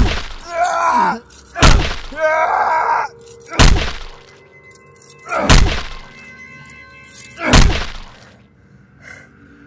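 Five heavy blows landing about two seconds apart, the first two each followed by a man's pained groan, over a sustained film music score.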